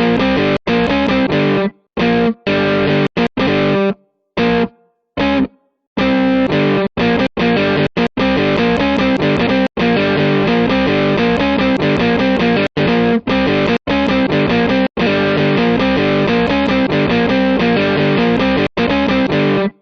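Loud distorted electric-guitar rock music that stops dead several times and restarts, with brief silent gaps.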